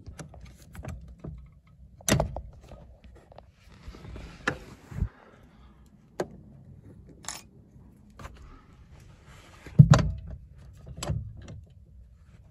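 Hands working among metal parts at a car's clutch and brake pedal box: scattered clicks, light knocks and small metal rattles, the loudest knock about ten seconds in.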